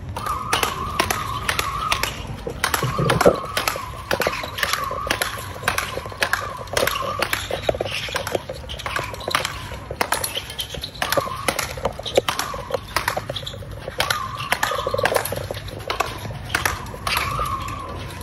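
Speedball rackets hitting the ball tethered to the central pole in a fast doubles rally: a long run of sharp hits, roughly two a second.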